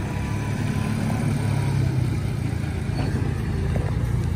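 A tractor's engine running steadily, a little louder for a moment about a second in.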